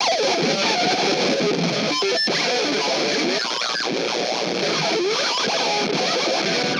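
Distorted electric guitar through effects, with many short sliding and wavering notes, playing as the start of a punk rock track with no drums or bass yet.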